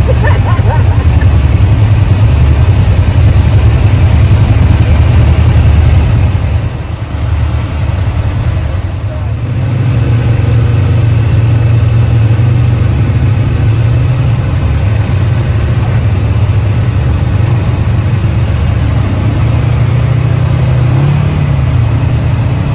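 Several Yamaha side-by-side UTV engines running together at idle, a steady deep drone, as the group starts up to move off. Near the end the engine note rises as they pull away.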